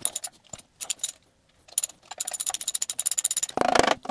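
Metal clinking and rattling of hand tools working the old water pump off the front of a Triumph TR4 engine. A quick run of clicks comes in the middle, and a denser, louder stretch near the end as the pump is knocked with a mallet to free it.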